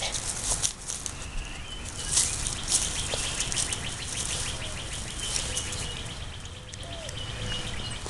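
A small dog rustling and crunching through grass and dry fallen leaves, with birds chirping in the background.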